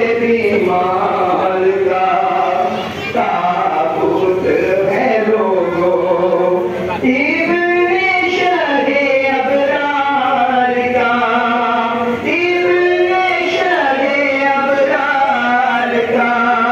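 Voices chanting a mournful Muharram lament, a melody of long held notes that waver in pitch, with only brief breaks for breath.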